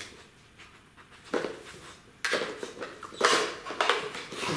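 German Shepherd puppy nosing and pawing at a dog puzzle toy, its blocks clacking and sliding on the board. There are short clattering bursts after a quiet first second, coming more often from about two seconds in.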